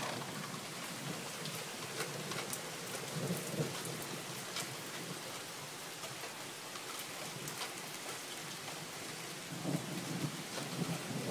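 Thunderstorm: steady rain hissing, with individual drops ticking sharply, and low thunder rumbling in swells, strongest about three seconds in and again near the end.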